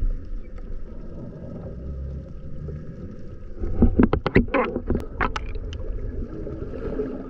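Muffled sea water sloshing at the surface, heard through an underwater camera housing. About four seconds in, a quick run of sharp splashes and bubbling comes as a freediver duck-dives from the surface and kicks down.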